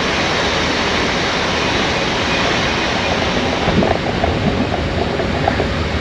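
Steady rumbling running noise of a moving passenger train, heard from inside the carriage.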